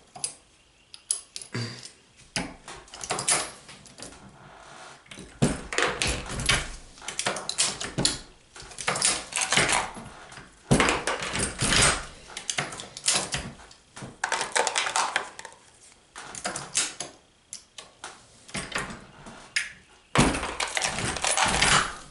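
Hornady Lock-N-Load progressive reloading press being cycled while loading 9mm rounds: repeated bursts of metallic clanks and clicks from the handle stroke and the shellplate indexing, coming every couple of seconds.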